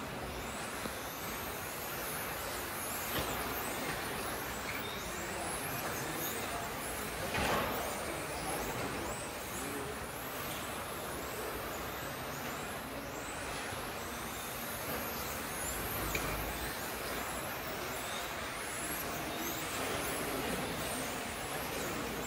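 1:10 electric RC touring cars racing, their brushless motors giving high-pitched whines that rise and fall again and again as the cars accelerate and brake around the track, over a steady noisy background. A louder rush comes about seven seconds in.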